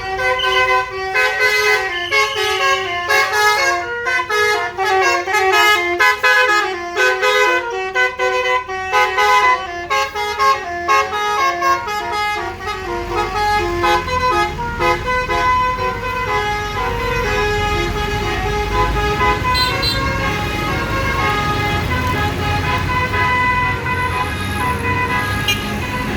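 Bus's telolet 'basuri' multi-trumpet musical air horn, very shrill, playing a quick melody of stepped notes. From about halfway, the notes are held longer over the low running sound of the bus engine.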